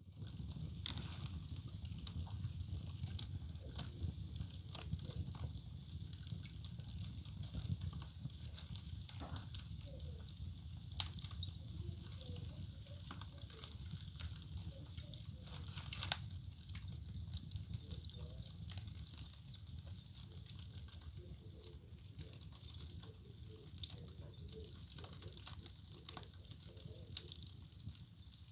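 Wood fire burning in a fireplace: a low steady rumble of the flames with frequent sharp crackles and pops.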